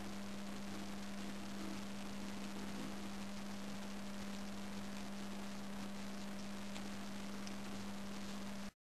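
A steady low hum with a constant hiss behind it, cutting off abruptly near the end.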